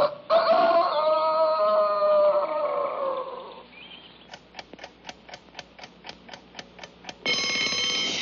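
A cartoon score phrase fades out, then a clock ticks steadily about four times a second, then an alarm clock bell rings loudly near the end.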